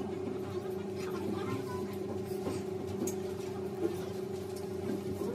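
Indistinct voices over a steady low hum, with a light click about four seconds in.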